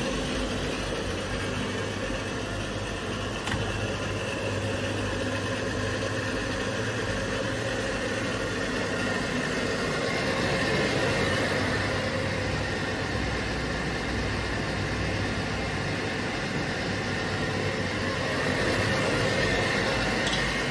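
Kaeser SX4T 3 kW rotary screw air compressor starting up and running under load as it builds pressure in its air receiver: a steady mechanical hum with a steady high tone on top.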